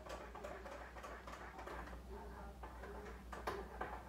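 Chicken dumpling noodle soup boiling under a glass lid in a frying pan: a steady run of irregular bubbling pops and light ticks.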